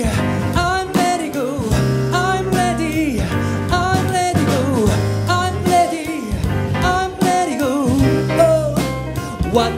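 Live band music: a male singer's voice over electric bass, drums and keyboard.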